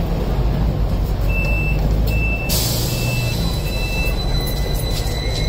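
Double-decker buses running at a busy kerbside, with a steady low engine rumble. Four short, evenly spaced high beeps come in the first half, then about halfway through a sudden hiss of air, like a bus's air brakes or doors releasing.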